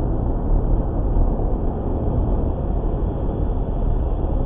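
Steady road and engine noise inside a car's cabin cruising at highway speed, about 60 mph, picked up by a windshield dashcam's microphone.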